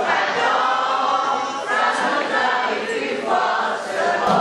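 A large audience singing a song together in chorus, many voices in unison.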